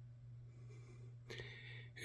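Near silence: quiet room tone with a low steady hum and a couple of faint breaths.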